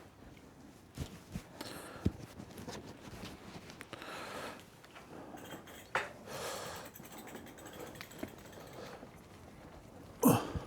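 Quiet handling noises: scattered clicks and knocks with bits of rustling, and a short, louder sound near the end.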